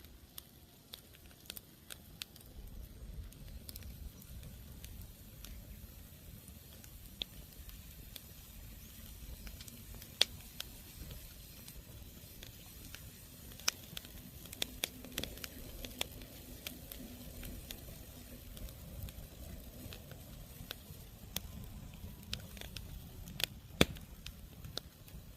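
Campfire crackling in a brazier: scattered sharp pops, the loudest about ten seconds in and near the end, over a low steady rumble.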